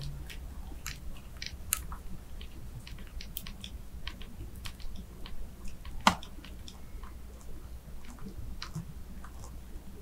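Woodworm larvae gnawing inside a wooden beam, picked up by a microphone fixed to the wood: irregular dry clicks and ticks, with one sharper click about six seconds in.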